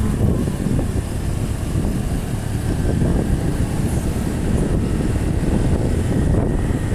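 Motorcycle riding along a road: a steady rumble of engine and road noise, with wind buffeting the microphone.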